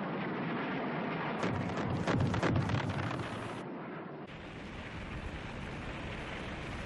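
Aerial bombs exploding over a steady rumble: a quick cluster of loud blasts about one and a half to three and a half seconds in, then a steady rushing noise.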